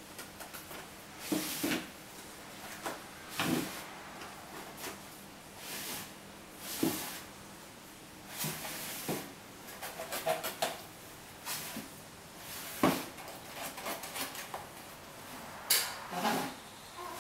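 Cardboard boxes knocking and scraping on a tile floor as ferrets push and scrabble at them: irregular thumps and scrapes every second or two. A brown ferret is trapped under fallen boxes and a white ferret is digging at the box edge to free her.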